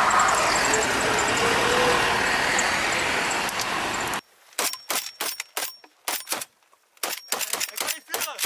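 Armoured patrol vehicles driving over a muddy dirt track, with steady engine and tyre noise. About four seconds in this cuts off abruptly to rapid gunfire in short bursts and clusters of shots from rifles and a light machine gun, fired with blank rounds.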